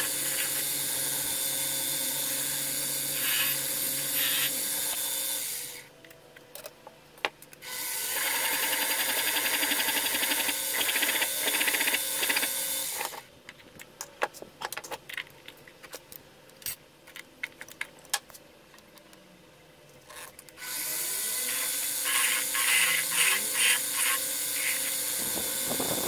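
Small metal lathe turning a metal part: three stretches of hissing cutting noise as the tool feeds into the spinning workpiece, with quieter pauses between them that hold scattered clicks and taps.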